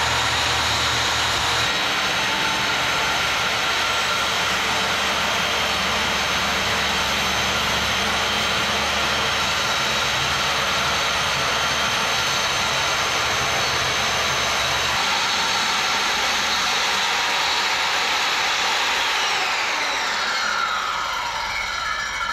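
Corded circular saw ripping a long cut through double-faced laminated marine plywood, the motor's whine and the blade's cutting noise running steadily. Near the end the trigger is released and the motor winds down, its pitch falling.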